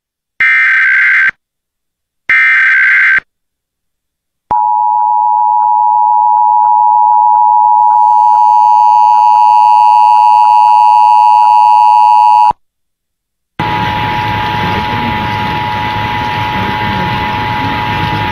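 Emergency Alert System header on a radio broadcast: two harsh digital data bursts, each about a second long, which are the end of the three-times-repeated SAME header. About four seconds in comes the EAS attention signal, a steady, loud two-note tone held for about eight seconds, which then cuts off. After a second's gap, a hissy broadcast feed with a faint steady tone comes in near the end.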